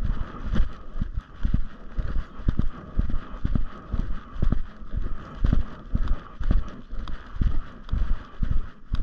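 Footsteps of a person walking at a steady pace, about two low thuds a second, over a steady background hiss.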